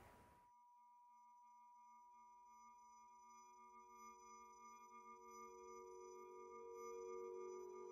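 Faint hiss that cuts off about half a second in, then a soft electronic drone of steady pure tones. A high tone and a low one hold while a pair of middle tones fades in about two seconds in and slowly swells, opening the song's intro.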